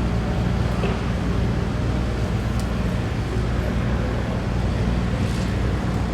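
Steady low drone of a running motor, unchanging in pitch and level, over a constant background hiss.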